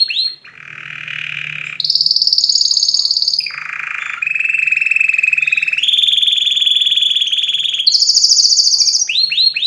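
Domestic canary singing in fast trilled tours: each a rapid run of one repeated note, switching every second or two between low buzzy rolls and high ringing trills. It ends in a run of quick falling notes.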